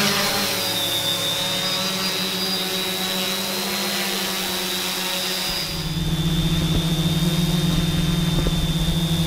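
Multirotor drone's propellers running in flight: a steady high whine over a rushing hiss. About six seconds in, low steady humming tones join under the whine.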